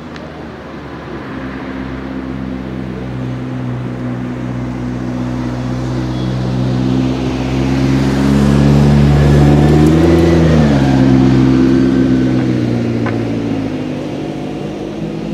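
McLaren P1's twin-turbo V8 running at low, steady revs as the car drives slowly past. It grows louder as it nears, the revs rise briefly about ten seconds in, and it fades as the car pulls away.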